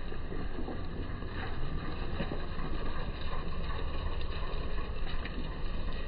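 Steady low rumble of outdoor background noise, with a few faint ticks and no bird call.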